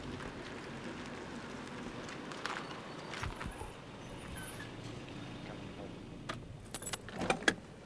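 Steady background noise of an outdoor forecourt, with a few short clicks and a cluster of sharp knocks in the last second and a half.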